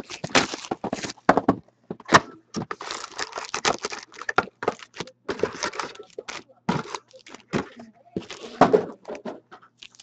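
Foil wrappers of hockey card packs crinkling and tearing as they are ripped open by hand, with the packs and cardboard box handled in quick, irregular rustles and light taps.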